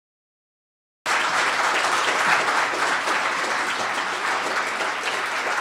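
Silence for about a second, then an audience applauding, cutting in suddenly at full strength and going on steadily.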